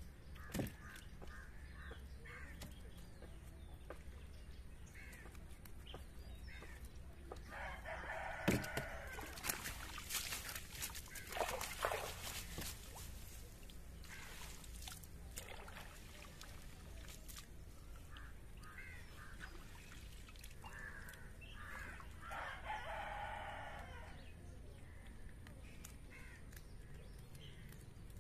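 A rooster crowing twice, about 13 seconds apart, over water splashing and dripping as a fish is worked out of a wet fishing net.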